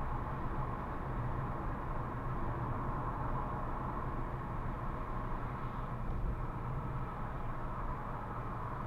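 Car driving at country-road speed, about 80 km/h easing to the mid-60s, heard from inside the cabin: a steady rumble of engine and tyre noise on the road.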